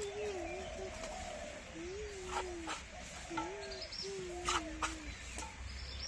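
A dove cooing: a run of low, gliding coos repeated about four times. Several short sharp clicks from a knife cutting through a green gourd held in the hand come in between.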